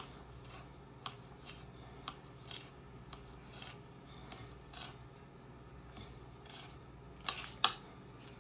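Kitchen knife slicing through a sausage and knocking on a wooden cutting board: irregular soft chops about a second apart, with two sharper clicks near the end.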